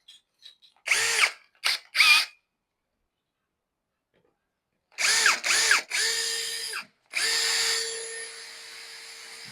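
Power drill revving in short trigger blips that spin up and wind down, about one and two seconds in. Two more bursts come about five seconds in, then a longer steady run from about seven seconds, drilling the marked screw holes.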